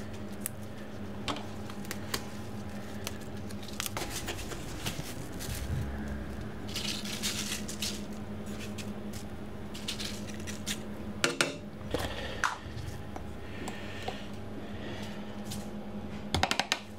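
Scattered clicks, knocks and light clatter of hands handling kitchen utensils and ingredients, over a steady low hum. There are short rustles about 7 and 14 seconds in, and quick runs of clicks about 11 seconds in and at the very end.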